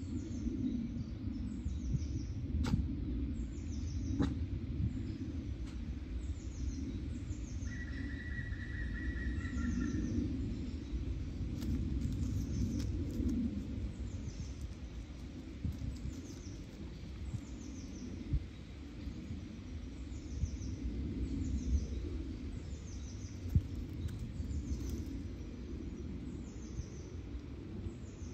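A small songbird calling over and over, a short high falling note every second or so, with a steadier whistled note for a couple of seconds about eight seconds in. Under it runs a steady low rumble.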